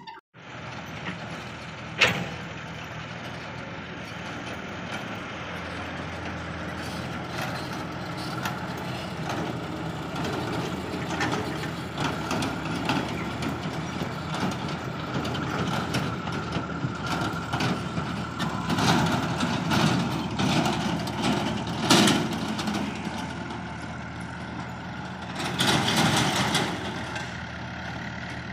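Mahindra 595 tractor's diesel engine running steadily, with a sharp knock about two seconds in and the engine growing louder twice later on.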